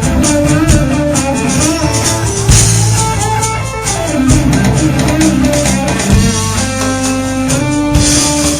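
Live rock band playing an instrumental passage: guitar lines over a drum kit.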